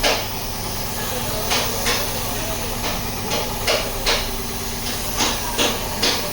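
Hammer blows on car body sheet metal during accident repair, struck in loose groups of two or three, about nine in all, over a steady low background hum.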